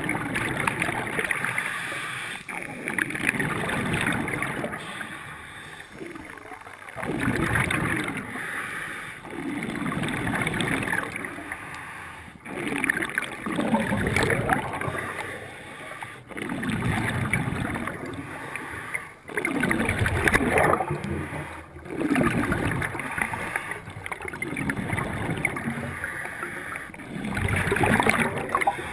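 Scuba diver breathing through a regulator underwater: exhaled air bubbles out in repeated bursts every few seconds, with quieter gaps between breaths.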